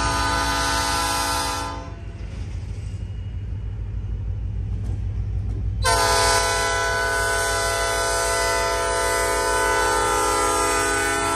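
Norfolk Southern 3021's Nathan P5 five-chime air horn blowing for a crossing: one blast cuts off about 2 seconds in, and a second long blast starts about 6 seconds in and holds, dipping slightly in pitch as the locomotive passes near the end. The diesel engine's low rumble runs underneath throughout.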